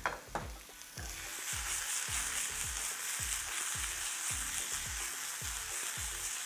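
Artichoke hearts frying in oil in a hot pan: a steady sizzle that comes in about a second in and holds.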